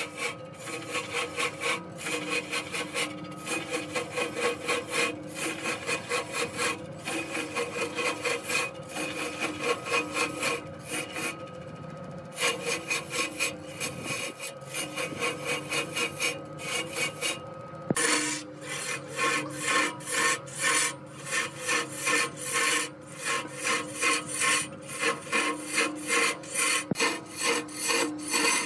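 Cloth-wrapped pad pressed against a large log spinning on a wood lathe: a rasping rub that pulses rapidly, over a steady hum. The rasping drops away briefly twice, about twelve and seventeen seconds in.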